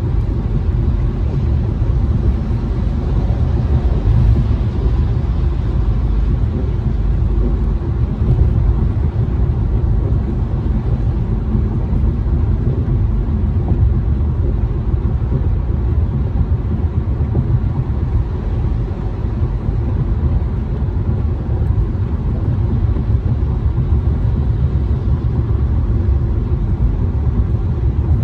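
Steady low rumble inside a car's cabin as it drives a wet freeway in the rain: engine and tyres on wet pavement, with a fainter hiss above.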